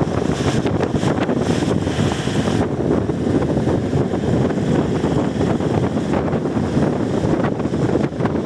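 Wind buffeting the microphone over the steady low rumble of a moving car, with a few faint knocks and, in the first three seconds, some brighter hiss.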